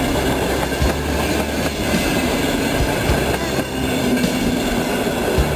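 Passenger coaches rolling past at a level crossing: steady rumble of wheels on the rails, with a few sharp clacks as the wheels cross rail joints.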